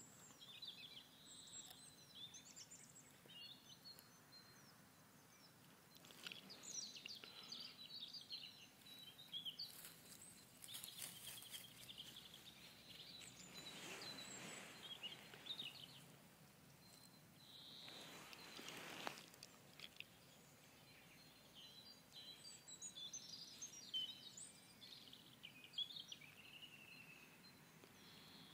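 Faint outdoor quiet with small birds chirping now and then, and two short rushes of noise near the middle.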